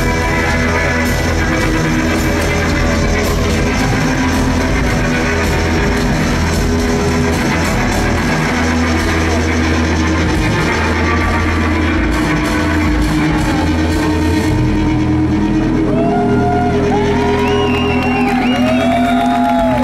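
Live rock band playing loud: distorted electric guitars over drums and a heavy droning low end. Wavering, sliding high tones come in near the end.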